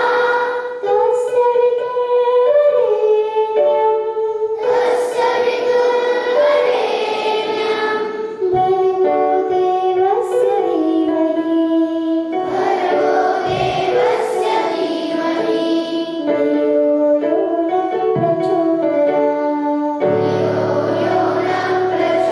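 A group of schoolgirls singing a prayer song together into microphones, a slow melody of held notes moving step by step. A low steady drone joins near the end.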